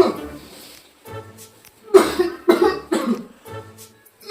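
A person coughing: several sharp coughs in quick succession about halfway in, over background music.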